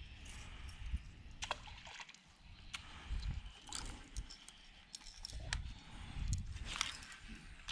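Light handling sounds of a baitcasting rod and reel during a cast and retrieve: scattered small clicks and ticks over a low rumble of wind on the microphone.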